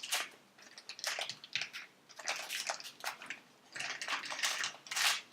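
Plastic toy packaging crinkling and rustling in irregular bursts as it is handled and opened.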